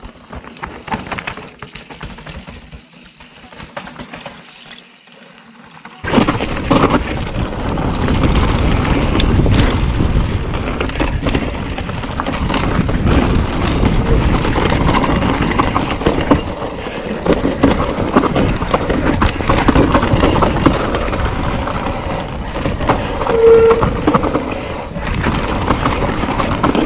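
Mountain bike ridden fast down a rough dirt downhill trail, heard from a camera mounted on the handlebars: loud, continuous wind rumble on the microphone mixed with tyre noise and the rattle of the bike over roots and rocks. It starts abruptly about six seconds in, after a quieter stretch of scattered clicks and crunches.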